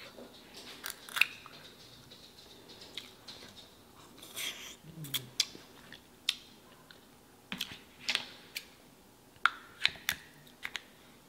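Scattered sharp clicks and snaps of crab and shellfish being handled and eaten. Kitchen scissors snip several times at a crab shell near the end, struggling to cut through it. A brief low hum from the eater comes about five seconds in.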